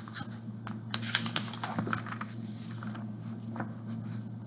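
Picture book being handled and its page turned: irregular soft paper rustles, scrapes and small taps, over a steady low hum.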